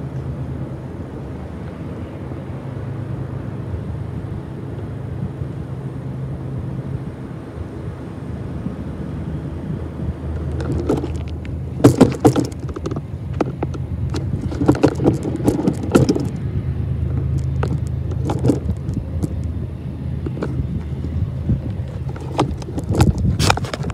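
Diesel locomotive engines of a freight train running with a steady low drone. From about ten seconds in, a run of irregular sharp knocks and thumps joins it.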